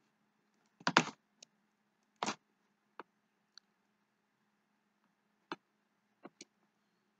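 Scattered computer mouse and keyboard clicks, about nine in all, the loudest around one and two seconds in, over a faint low hum.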